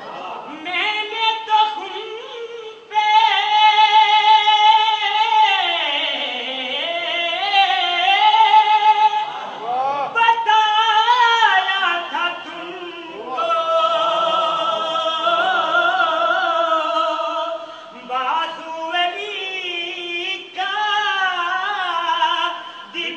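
A young man singing a devotional religious song into a microphone, in long phrases of held, wavering notes with short breaks between them.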